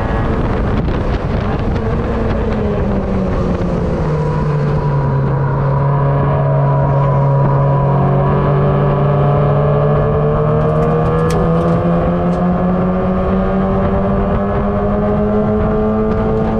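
Onboard sound of a Mazda MX-5 race car's four-cylinder engine at racing speed. The revs drop in two steps over the first four seconds, hold low for a few seconds, then climb steadily as the car accelerates.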